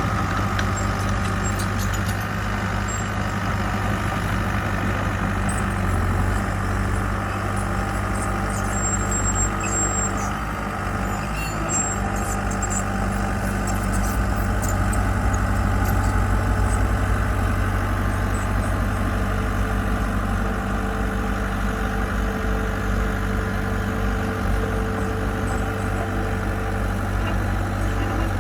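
Diesel engine of heavy construction equipment running steadily at an even speed, with no revving.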